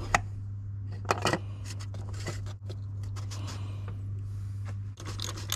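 A few light clicks and knocks of hand work: the oil filter housing cap of a BMW M57 diesel being screwed back in by hand. Near the end, a short cluster of metal clinks as tools are picked up off the engine cover.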